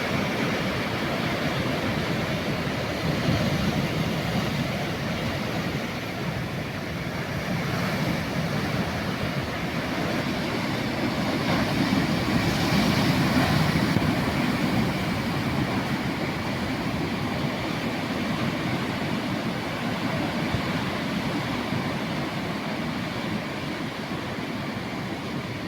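Sea surf: a steady rush of waves washing on the shore, swelling a few seconds in and again about halfway through.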